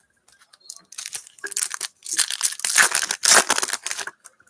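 A foil trading-card pack wrapper crinkling and tearing as it is ripped open, in scattered crackles from about a second in and then a dense rustle for about two seconds.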